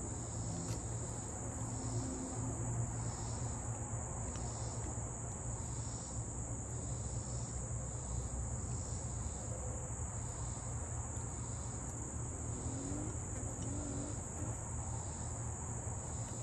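Steady high-pitched insect chorus, like crickets, with a slower rhythmic pulsing about once a second, over a low steady hum.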